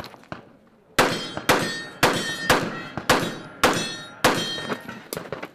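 A string of about eight pistol shots, roughly two a second, starting about a second in. Each shot is sharp, with a short metallic clang ringing after it.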